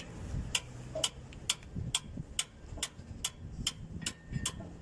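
Sharp metallic clicks at an even pace, about two a second, from a wrench being worked on the bolts of a tower crane's hoist gearbox.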